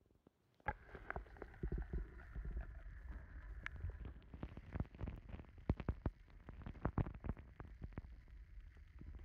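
Underwater sound picked up by a camera dipped into a weedy lake: a low, muffled rumble with scattered clicks and knocks, starting suddenly under a second in.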